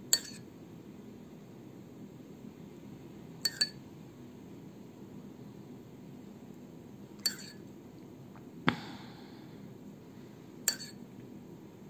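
A metal spoon clinking against a bowl of beaten egg as egg is scooped out, about six separate clinks a few seconds apart, two in quick succession, the loudest about three-quarters through with a short ring.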